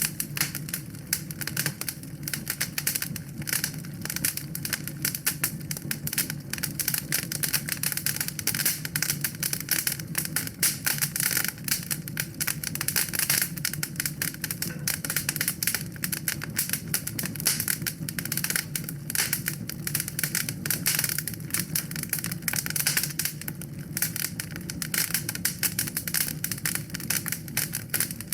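Wood fire crackling and popping continuously in a fireplace, dense small snaps over a low steady rumble of the flames.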